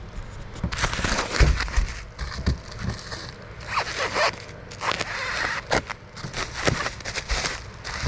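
Packaging being opened and handled: irregular crinkling and crackling with a few short knocks.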